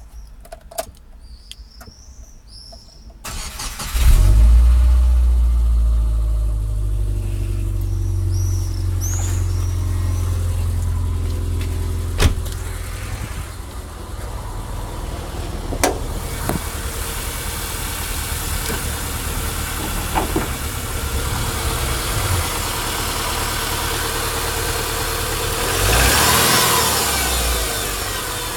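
Car engine cold-started: it cranks about three seconds in, catches a moment later and settles into a steady cold idle. The owner wonders whether the noise it makes when cold is piston slap.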